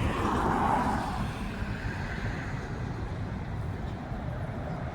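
Road traffic noise. A vehicle passes in the first second or so, its tyre noise sliding down in pitch, and steady traffic hum follows.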